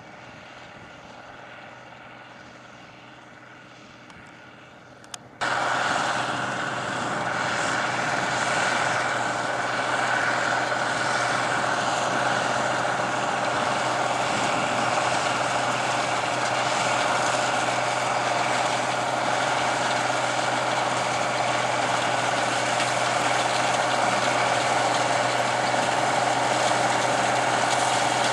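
International Harvester 1480 Axial-Flow combine running steadily while harvesting grass seed, its engine and threshing machinery making a continuous mechanical drone. The sound is quieter at first, then jumps sharply louder about five seconds in, just after a click, and stays steady after that.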